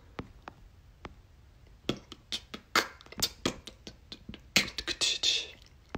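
Fingers tapping on a smartphone's touchscreen close to its microphone: a run of irregular sharp clicks, thickest in the second half, with a short breath near the end.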